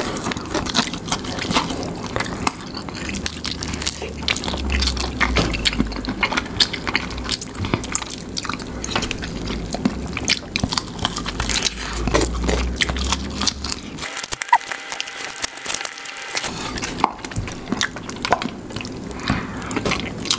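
Eating sounds from two people chewing fried chicken: wet lip-smacking and many quick mouth clicks, picked up close to the microphone.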